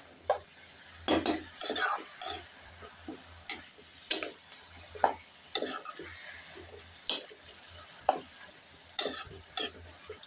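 Steel spatula stirring shredded cabbage and potatoes in a metal kadai: irregular scrapes and clicks of metal on the pan, about a dozen spread unevenly.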